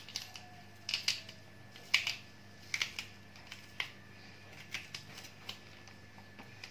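Kitchen knife cutting into spiny gourds (kantola) and scraping out their seeds: a string of short, sharp scrapes and clicks, roughly one a second, growing fainter in the last couple of seconds.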